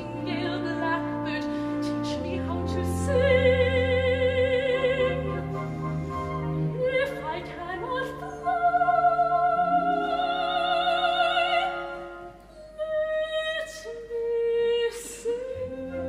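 A soprano singing in operatic style, holding long high notes with wide vibrato, over an orchestra.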